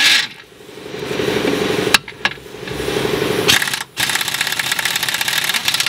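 Pneumatic impact wrench hammering in three bursts of a couple of seconds each, tightening the nuts on a car's transmission mount and lower control arm.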